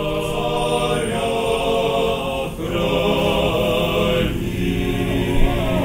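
Choir singing slow, sustained chords that shift every second or two.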